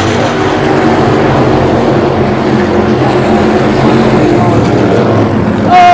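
Engines of a field of SK Light modified race cars running hard at speed. Near the end, a loud whine that falls in pitch over about a second.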